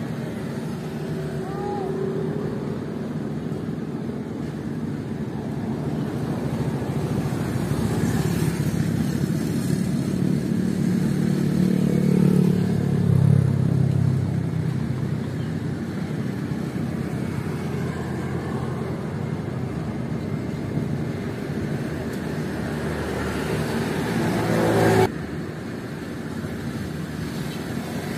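Steady motor-vehicle noise with cars and motorcycles running, swelling to a louder pass in the middle and dropping off suddenly near the end.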